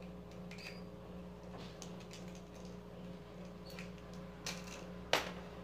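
Small clicks and cloth rustling as a pair of pliers is wiped clean of lubricant, with one sharp, louder click near the end.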